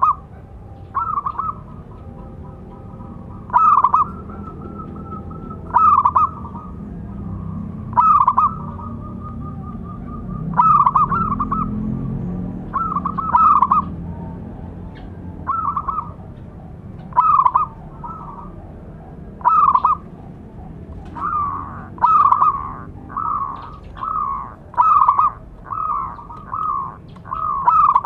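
Zebra dove (perkutut) cooing: short trilled phrases repeated about every two seconds, coming faster in the second half with softer phrases in between. A low rumble swells under it in the middle.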